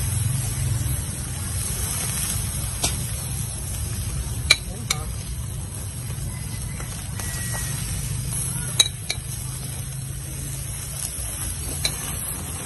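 Satay-marinated frog pieces sizzling over a charcoal grill, a steady hiss, with a few sharp clicks of metal tongs against the grill, the loudest about four and a half and nine seconds in.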